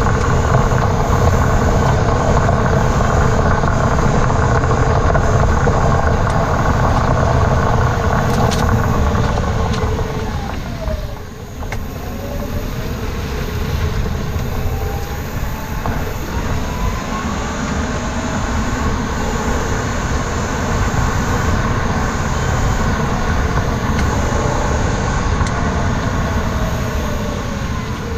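Road and running noise of a 2018 Mitsubishi Outlander on the move, heard from under the car by its rear suspension: a steady low rumble with a faint whine. About eleven seconds in, the noise eases and the whine drops in pitch as the car slows, then both rise again as it picks up speed.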